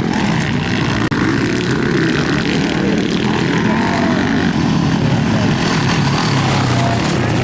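Motocross bike engines running hard at race pace, a steady drone with the revs rising and falling as the riders work the throttle.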